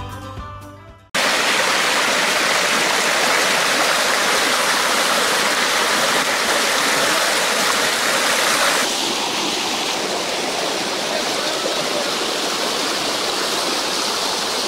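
Muddy rainwater rushing and churning in a fast torrent, a loud, steady rushing noise that sets in suddenly about a second in as a music clip fades out. About nine seconds in the rushing turns a little softer and duller.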